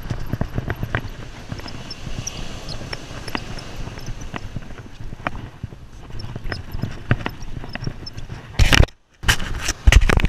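Handling noise from an angler reeling in on a conventional surf rod and Penn Squidder reel: irregular small clicks and knocks over a low rumble of surf and wind on the microphone. Near the end come loud rustling bumps against the microphone.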